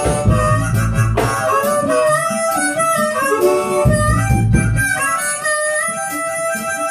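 Harmonica playing a lead line of held and bending notes over a live reggae band jam, with a low bass end pulsing beneath.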